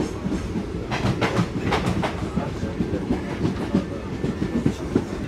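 Moving passenger train heard from inside the carriage: a steady low rumble with wheels clattering over the track, and a few sharper clicks about one to two seconds in.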